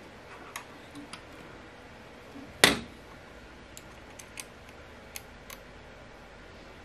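Small parts clicking and tapping on a miter gauge bar as the T-slot locator is fitted by hand, with one much louder sharp knock a little under three seconds in.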